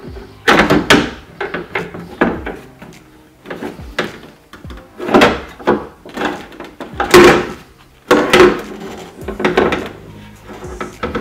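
A window regulator mechanism being worked into a car door's inner panel: a series of knocks, clunks and scraping of plastic and metal parts against the sheet-metal door, in irregular bursts every second or so.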